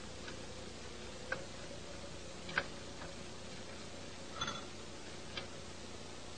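A few sharp, irregularly spaced ticks and clicks, the loudest about two and a half seconds in, over a faint steady hum and hiss.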